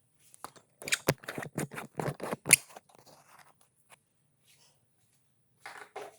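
Small hard parts being handled: a quick run of clicks and scrapes over about two seconds with one sharp snap, then a short scrape near the end.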